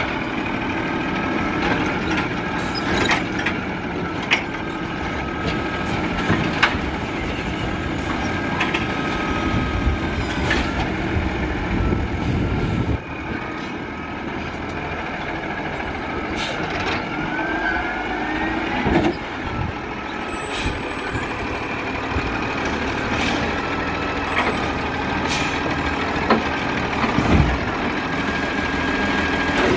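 Diesel engine of a 2010 Peterbilt garbage truck with a Wayne Curbtender side-loader body, running at low speed through a slow turn. A steady whine sits over it, and a dozen or so short sharp hisses and clicks, typical of air brakes, come through at irregular moments.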